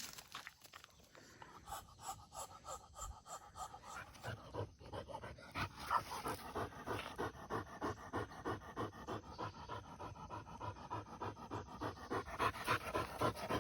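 English setter panting hard, about four breaths a second, settling into a steady rhythm a few seconds in.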